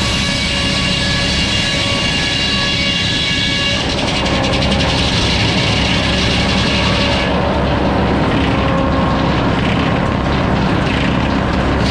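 Sawmill running, its engine holding a steady note while the saw cuts a log; the sound turns rougher about four seconds in and duller at about seven seconds.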